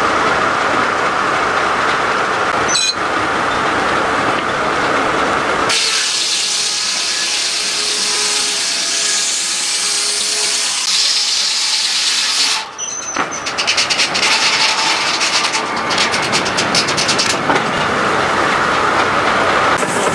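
A circular sawmill running, with a steady whine from the blade, for the first few seconds; then, after abrupt changes, other machinery running with a steady hiss and later a rapid fine clatter.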